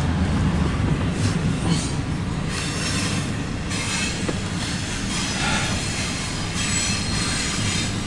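Double-stack intermodal freight cars rolling past on steel wheels, a steady rumble and clatter of wheels on rail with some high wheel squeal, heard from inside a vehicle beside the track.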